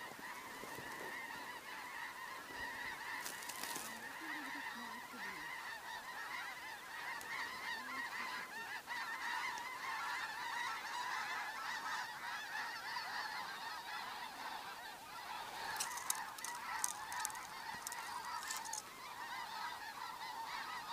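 A flock of wild geese flying over, many birds honking together in a continuous, distant chatter. There are a few sharp clicks in the last quarter.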